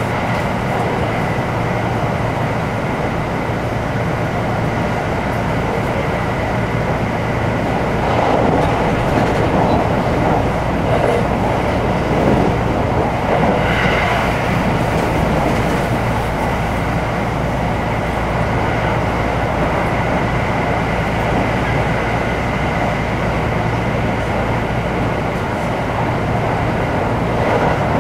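Cabin noise inside a JR 225-series electric multiple unit running along the line: a steady rumble of wheels on rail with a faint steady whine. The running noise grows louder and brighter for a stretch around the middle.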